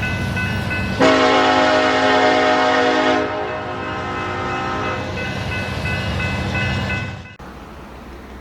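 CSX freight train's diesel locomotive horn sounding one loud chord blast of about two seconds, starting about a second in, over the steady rumble of the train. The train sound cuts off abruptly near the end.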